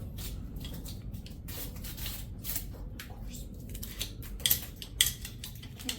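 Duct tape being handled, pulled and torn at: a run of crackling, ripping noises, the loudest about four and a half and five seconds in.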